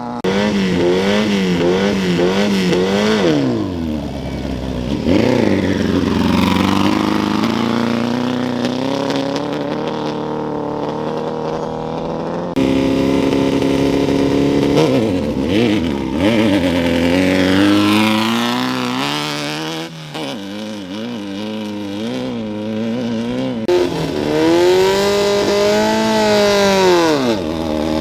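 Off-road race vehicle engines revving at a start line: quick throttle blips at first, then engines accelerating away with the pitch sweeping down. The sound changes abruptly twice, and near the end one engine revs up and back down in a single long rise and fall.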